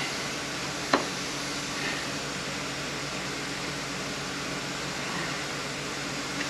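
Steady fan-like hum of room air noise, with one sharp click about a second in.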